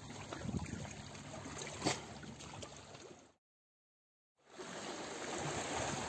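Sea water lapping and splashing with a steady wash. It cuts to dead silence for about a second partway through, then resumes.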